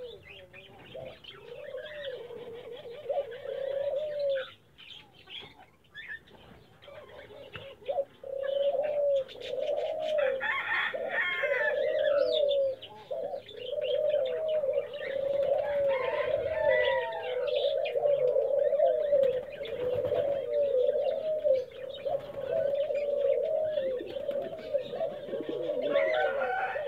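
Domestic pigeons cooing, many coos repeating and overlapping from several birds. The coos thin out for a few seconds about four seconds in, then run on almost without a break.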